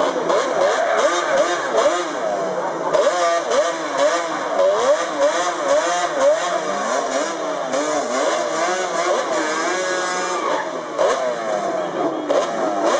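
Drag-racing quad (ATV) engine revved in quick throttle blips, its pitch rising and falling about twice a second.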